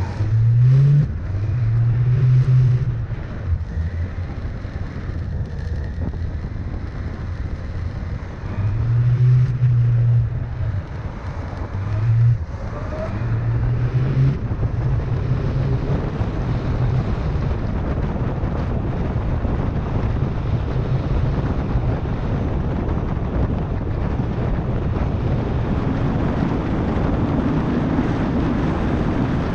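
Suzuki Bandit 1200 inline-four engine pulling through several short accelerations, rising in pitch, in the first half. After that comes a steady rush of wind and road noise at freeway speed.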